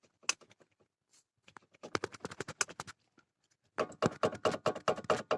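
Rapid, light clattering of hard objects, in two quick runs of many clicks a second, the second beginning a little under four seconds in.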